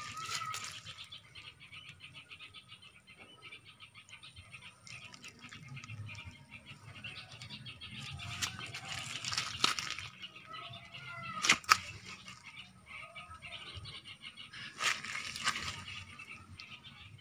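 Outdoor garden ambience: a rapid high chirping continues throughout, with a few brief rustles and two sharp clicks about two-thirds of the way in.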